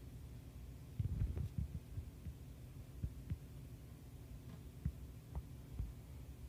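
Low steady background hum with soft, irregular low thumps: a cluster of them about a second in, then single ones every second or so.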